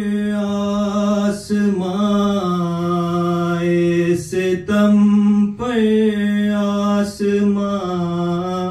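A man's voice singing a noha, a Shia mourning lament, in long drawn-out notes that change pitch only every second or two.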